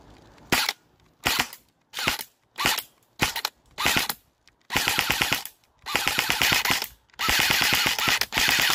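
Airsoft rifle firing: six short bursts about two thirds of a second apart, then four longer bursts of rapid automatic fire, each about a second long.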